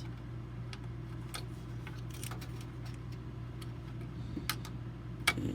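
Scattered light clicks and taps from hands handling desktop PC parts, with one sharper click near the end, over a steady low hum.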